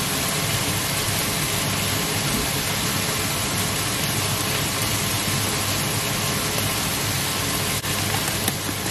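Steady, loud rushing hiss at the stove: red peppers frying in a pan under a running kitchen extractor hood, with a low steady hum beneath.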